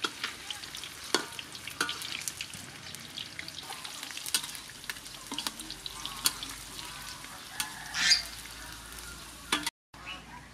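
Meatballs deep-frying in hot oil in an aluminium wok, a steady crackling sizzle, with a metal ladle stirring through them. A brief louder noise about eight seconds in; the sizzle cuts off suddenly near the end.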